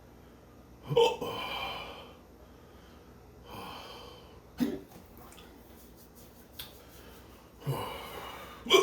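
A man hiccuping hard, four sharp hiccups at uneven intervals, each followed by heavy breathing. The hiccups are set off by the burn of super-hot chili shots.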